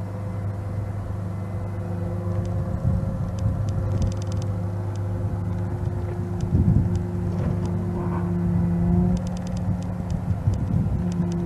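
International DT530 straight-six turbo diesel running steadily at a constant speed, an even low hum.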